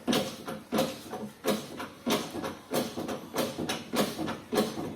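Steady series of hammer blows on metal, about one every two-thirds of a second, each ringing briefly, driving the wheel hub out of the steering knuckle and its failed hub bearing.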